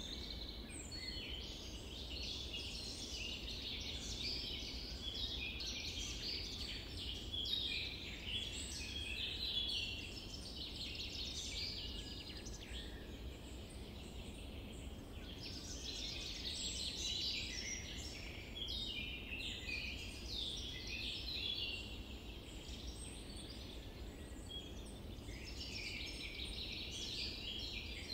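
A chorus of many birds chirping and calling together without a break, over steady low background noise.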